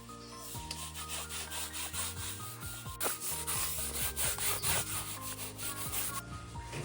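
Rhythmic scraping strokes on wood, a few a second, growing louder about halfway through, over soft background music.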